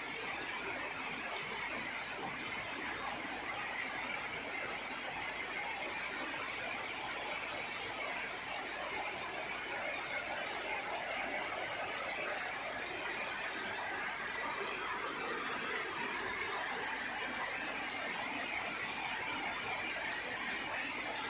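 Steady rain falling, an even hiss that holds the same level throughout, with no thunder.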